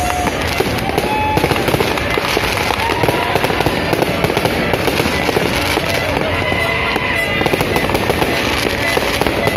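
Dense barrage of aerial fireworks: continuous crackling and popping from many shells bursting at once. A few short tones sound over it.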